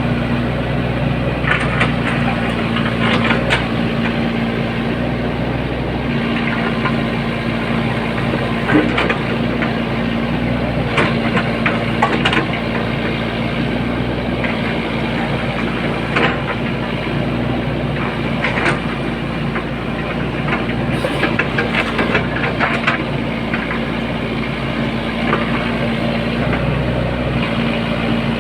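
Excavator's diesel engine running steadily, with scattered sharp knocks from the machine working.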